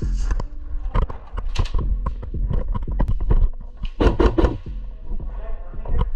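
Irregular sharp knocks and clicks, in quick clusters, over a steady deep bass line.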